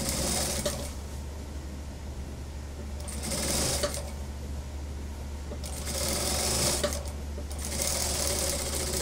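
Industrial single-needle lockstitch sewing machine stitching through suit cloth in four short runs, starting and stopping as the cloth is guided under the presser foot. A steady low hum continues under and between the runs.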